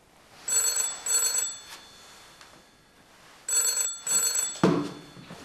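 Old black rotary desk telephone's bell ringing in double rings, two short bursts to each ring, twice: an incoming call. A thump, the loudest sound, follows about four and a half seconds in.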